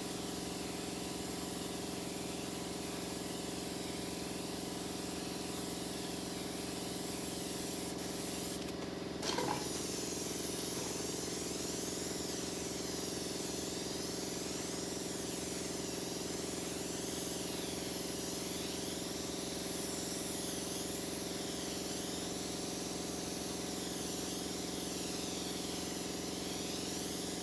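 Spray gun hissing steadily as it applies finish, with the even hum of a motor, likely the air compressor, running underneath. A short knock comes about nine seconds in.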